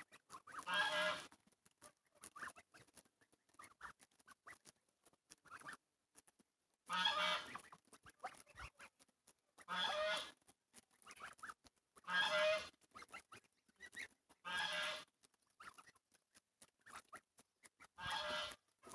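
Young domestic geese, about a month and a half old, honking while they graze: six loud calls a few seconds apart, with soft short calls and faint clicks in between.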